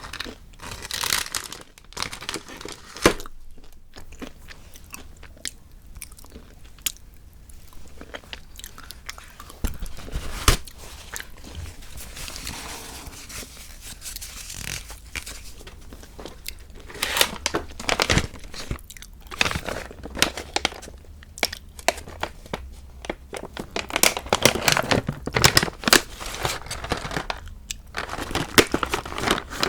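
Chocolate being bitten and chewed close to the microphone: crisp crunches come in clusters, densest in the last few seconds, with quieter chewing between.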